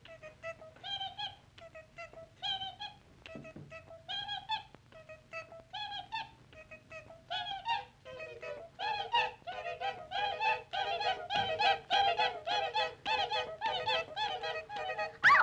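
Cartoon bees' high, sing-song voices in short repeated arching notes, few and spaced at first, then many overlapping into a louder chorus about halfway through. A loud falling swoop comes at the very end.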